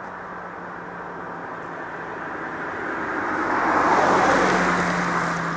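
A passenger car driving past close by: its tyre and engine noise swells to a peak about four seconds in, then starts to fade as it moves away.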